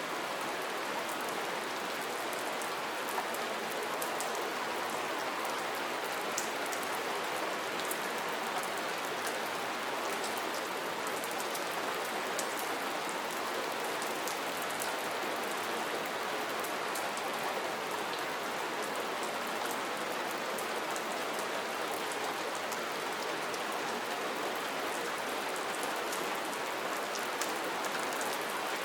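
Steady soft rain falling, an even hiss with scattered individual drop ticks.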